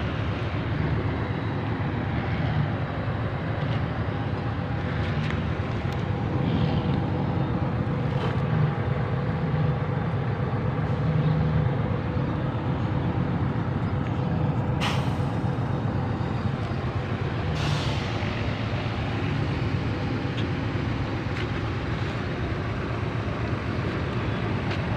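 Diesel truck engine idling steadily, with two short air hisses a few seconds apart past the middle.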